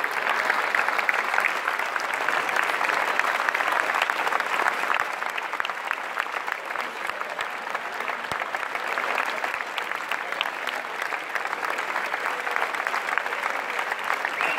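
Large audience in a hall giving a standing ovation: sustained dense clapping of many hands, easing slightly in the middle and building again near the end.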